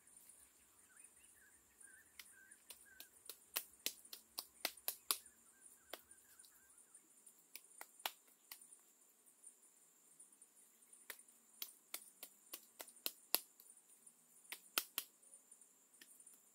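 Bamboo sticks being handled against a mud wall: irregular sharp clicks and knocks, coming in two bunches, in the first half and again in the second. A steady high insect drone runs underneath, with faint bird chirps over the first few seconds.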